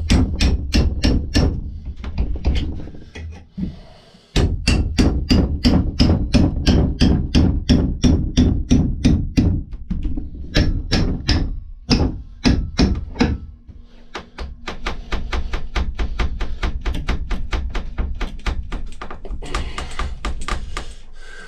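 Rapid hammer blows, about four or five a second, in runs broken by short pauses, hammering at an old axe handle stuck tight in the axe head.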